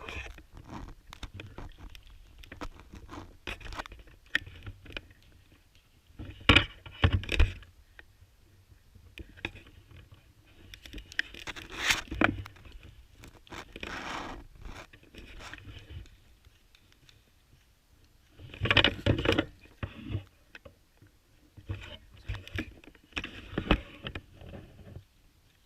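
Irregular scraping, crunching and rustling handling noise, with several louder bursts lasting about a second each: around six to seven seconds in, at about twelve, around nineteen, and near the end.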